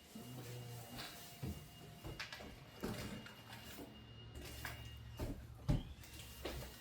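Scattered knocks and clicks of objects being handled and set down, over a low hum.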